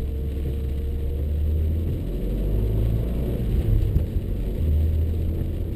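In-cabin sound of a Renaultsport Mégane Cup's turbocharged four-cylinder engine running along a wet track, a low drone with tyre and road-spray noise; the engine note changes about two seconds in and again around four seconds in.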